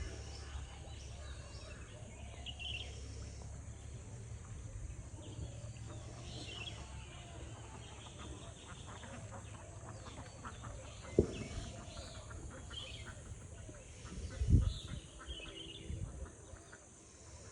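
Outdoor ambience with scattered short bird chirps over a steady low wind rumble, broken by two sharp thumps, one about two-thirds of the way in and a louder one a few seconds later.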